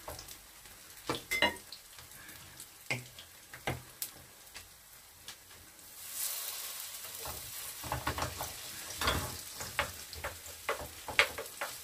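Kimchi pancake batter sizzling in oil in a frying pan, with scattered clicks and taps of utensils against the pan and the batter bowl. The sizzle grows louder about six seconds in, as fresh batter is spooned into the hot pan.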